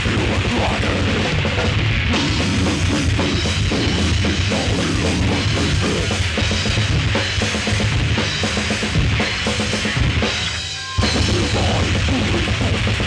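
Death metal band playing live: fast drumming with bass drum and cymbals under guitar and bass. About ten and a half seconds in, the band breaks off for a moment, then crashes back in at full volume.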